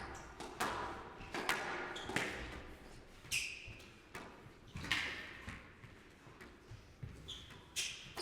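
A squash rally: the ball is struck by rackets and smacks off the court walls about once a second, each hit echoing briefly in the hall, with a couple of short shoe squeaks on the court floor.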